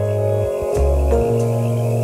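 Ambient background music of long held tones, with the low note changing a few times in the first second.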